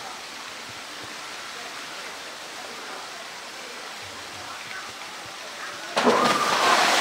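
Steady rushing noise like running water, then about six seconds in a polar bear plunges off a rock ledge into its pool with a sudden loud splash that carries on to the end.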